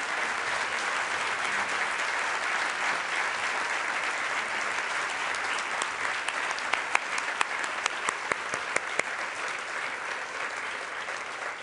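Audience applauding steadily, with a few louder individual claps standing out in the second half and the applause thinning slightly near the end.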